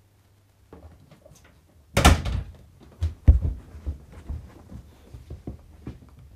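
A loud bang about two seconds in, then two heavy thuds and a run of quick, lighter knocks: a person running footsteps along a hallway.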